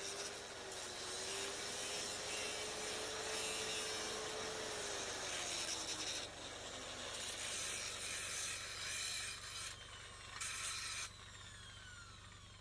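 Steady rasping of metal being scraped or abraded, in long strokes broken by brief pauses. A faint whine falls in pitch about halfway through.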